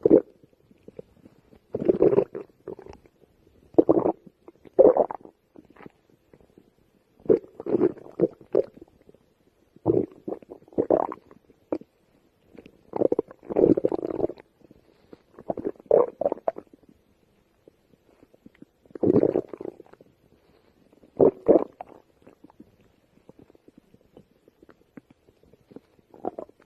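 A person's empty stomach growling: about eleven irregular gurgling rumbles, each lasting up to a second or so, separated by short quiet gaps. These are hunger growls after a long time without food.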